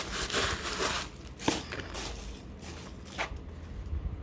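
Packaging rustling and crinkling as a handbag is taken out of its wrapping, with two sharp clicks or taps, one about a second and a half in and another near the end.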